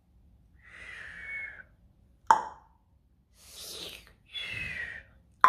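Mouth-made plops, two sharp pops about three seconds apart, with soft whispered hushes between them: a play sound effect for little bugs being dropped one by one into a glass jar.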